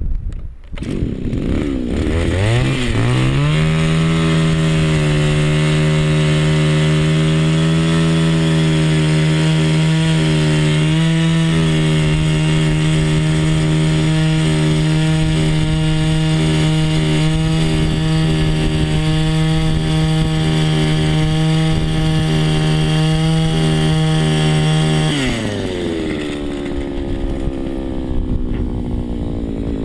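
Gas-powered ice auger's small engine revving up about two seconds in and running at a high, steady speed while the auger bores down through the ice. About 25 seconds in it drops back to idle, then starts to rev up again at the very end.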